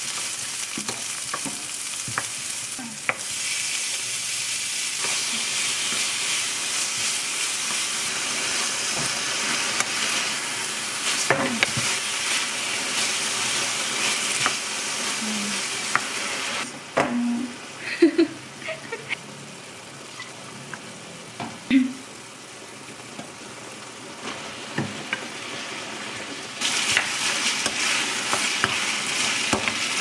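Vegetables and meat sizzling in a nonstick frying pan while a wooden spatula stirs them, with scattered knocks of the spatula on the pan. The sizzle is loud for the first half, drops quieter for a stretch with more knocking, and comes back loud near the end.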